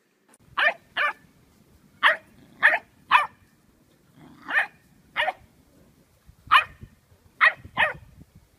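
A dog barking repeatedly, about ten short, sharp barks, mostly in pairs, starting about half a second in.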